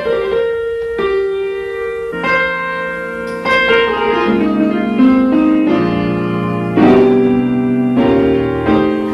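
Solo piano playing slow chords, each struck and left to ring, with a new chord or note roughly every second.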